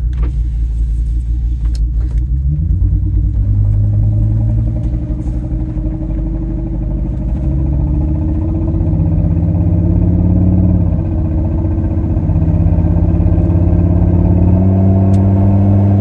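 The 6.8-litre V10 of a 2002 Ford Excursion running under load with the window open, its pitch climbing, dipping briefly about two-thirds of the way through, then climbing again. It goes back and forth between misfiring and running on all ten cylinders, from a failed ignition coil that leaves one cylinder not firing.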